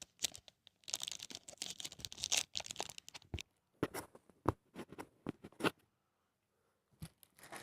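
Plastic packaging rustling and crinkling as a smartwatch is unpacked, then a string of short sharp clicks and taps as the watch and its box are handled.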